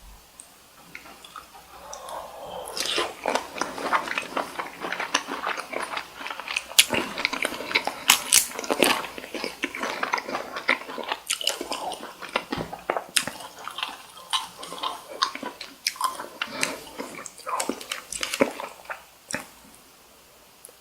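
Close-miked chewing of cooked cocktail shrimp: a dense run of quick, wet mouth clicks and smacks that starts about two seconds in and stops near the end.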